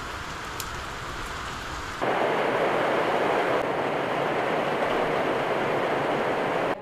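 Rain falling steadily. For about the first two seconds it is a softer hiss with wind rumbling on the microphone, then it turns abruptly louder and even.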